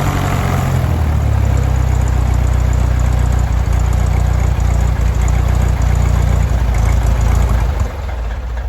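Kitfox STi's Lycoming O-320 four-cylinder air-cooled aircraft engine and propeller running on its first start. The engine slows in the first second, then idles steadily, and dies away near the end.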